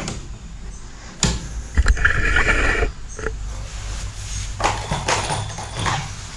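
One-handed bar clamp being set and squeezed onto a wooden strip: a knock about a second in, then a short clatter of about a second from the clamp, followed by lighter handling clicks.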